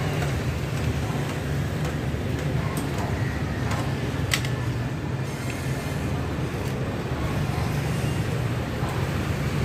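Steady street traffic noise with a low engine rumble, and a few light clinks, the sharpest about four seconds in.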